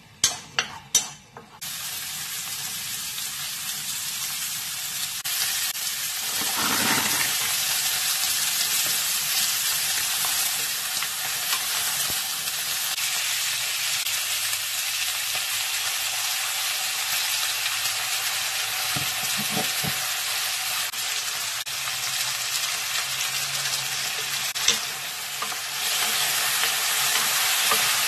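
A few light knocks as cut onion drops into a hot oiled pan. Then steady sizzling, a loud even hiss, as onion and thin-sliced beef brisket fry, with a single sharp knock about 25 seconds in.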